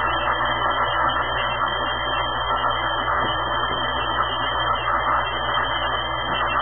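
Hand-held pet blow dryer running steadily, a constant loud rush of air with a low hum under it.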